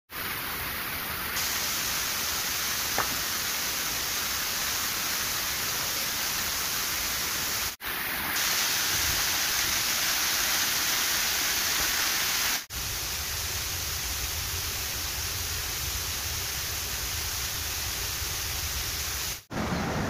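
Waterfall: a steady, loud rush of falling water, broken by three brief dropouts.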